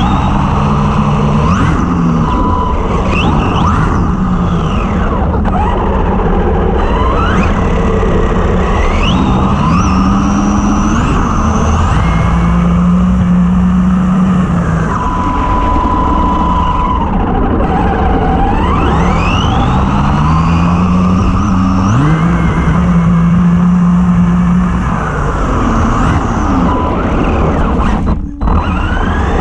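Arrma Typhon 3S RC buggy's brushless motor and drivetrain whining as it repeatedly accelerates and backs off, its pitch rising and falling in sweeps with steady stretches at speed.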